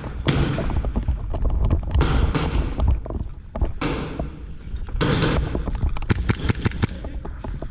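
Airsoft guns firing: rapid clicking shots in repeated bursts, densest in the second half.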